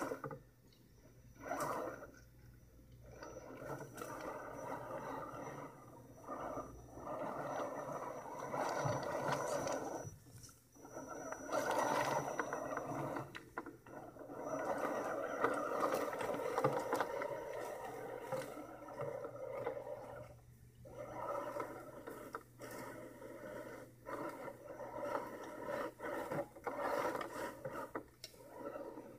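Electric drivetrain of a 1/10-scale Axial SCX10 RC rock crawler whining with gear noise as it crawls over creek rocks, tyres scraping on stone. It stops and starts several times, with short pauses between throttle bursts.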